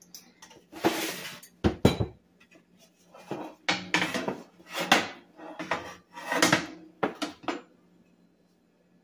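Kitchen dishes and utensils clattering on a countertop: a mixing bowl and a baking tray being handled and set down, with a string of irregular knocks and scrapes, the sharpest about two seconds in.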